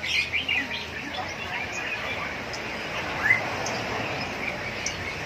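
Many birds in a bird shop chirping and calling over one another, with one louder rising call about three seconds in.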